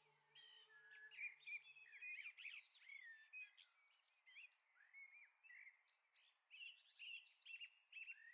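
Faint birdsong: several small songbirds chirping and whistling in quick, varied phrases.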